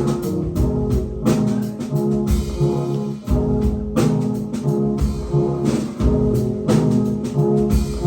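A live rock band playing an instrumental stretch with no vocals: a steady drum-kit beat under bass and keyboard-sampler parts.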